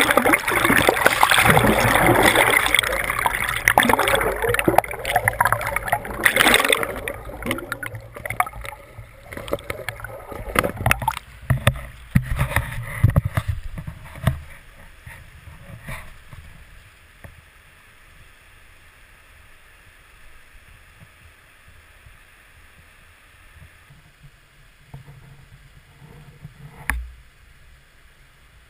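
River water rushing and churning around a camera dipped into and just under the surface, loud, with splashes. After about fifteen seconds it settles into a much quieter, steady flow of the river.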